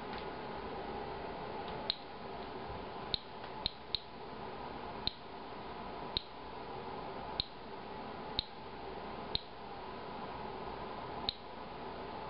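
Inspector Alert Geiger counter clicking at random, about ten sharp single clicks at uneven spacing, each one a detected ionization event. The rate is slow, near background radiation. A steady faint hum runs underneath.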